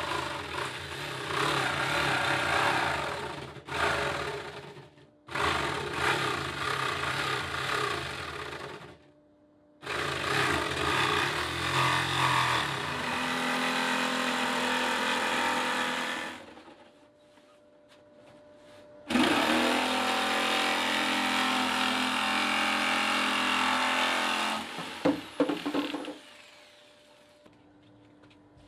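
Jigsaw cutting through a fibreglass panel, running in several stretches of a few seconds each with short stops between. It stops for good near the end, followed by a few sharp knocks.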